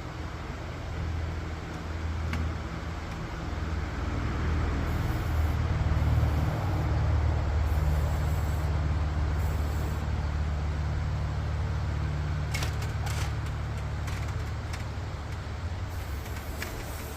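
A motor vehicle's engine running steadily with a low hum, growing louder in the middle, and a few sharp clicks or rattles near the end.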